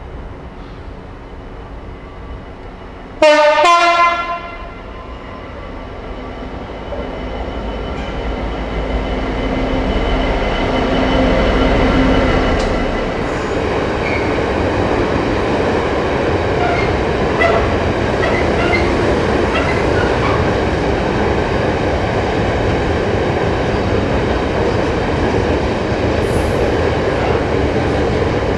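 Freightliner Class 66 diesel locomotive sounds a short two-note horn blast about three seconds in. Its engine then grows louder as it passes, followed by a long container train's wagons rumbling steadily by with brief wheel squeals.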